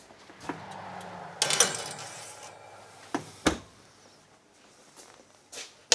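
An oven door opens and a metal baking sheet is slid onto the rack with a loud clatter, about a second and a half in. The door then shuts with two knocks and a thump, and a couple of lighter clicks follow near the end.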